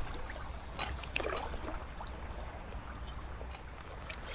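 Kayak paddle strokes in calm canal water: the blades dip and splash, and water trickles off them between strokes.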